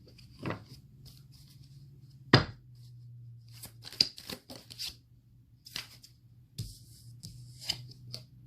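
Tarot cards being handled: a run of sharp card clicks and slaps as cards are shuffled and laid down, the loudest about two and a half seconds in.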